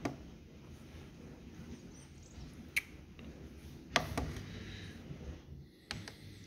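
Sharp single clicks of buttons being pressed on a TX16S radio transmitter, about four spread across the stretch, with light handling rustle between them.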